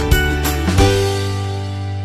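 Outro background music: two sharp hits in the first second, then a final chord held and slowly fading.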